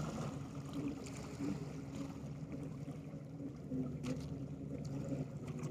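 A steady low engine hum, with faint water washing against the rocks.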